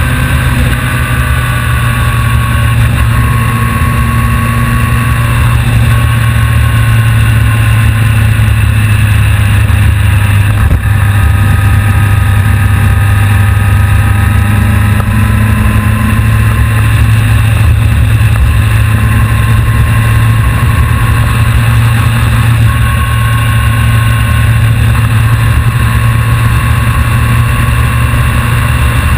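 A vehicle engine running loud and steady at an almost constant pitch, with only slight drifts in its higher tones and no sharp revs, as heard from a camera riding on the vehicle.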